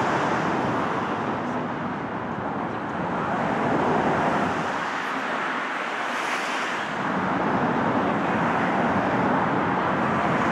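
Steady road traffic noise from the Brooklyn Bridge's car roadway, heard from the pedestrian walkway above it: a continuous rush of tyres and engines that dips slightly around the middle.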